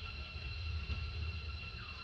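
Low rumble of motorbike traffic passing, swelling about halfway through, over a steady high-pitched drone.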